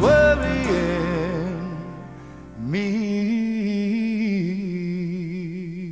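Soft-rock pop song with two long held notes that waver in pitch. The second note slides up into place about two and a half seconds in.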